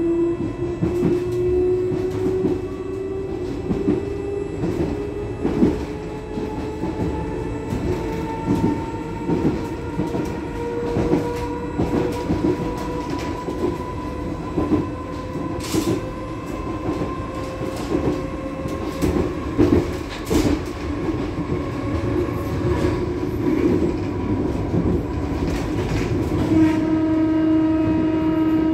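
Cabin sound of a moving Class 484 electric train, converted London Underground D78 stock: a motor whine slowly rising in pitch as it gathers speed, over a steady rumble and the clickety-clack of the wheels on the rail joints. Near the end a louder steady tone with several overtones sounds for about two seconds.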